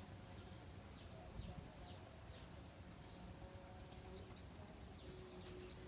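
Near silence: faint outdoor background with a few faint, short, high falling chirps.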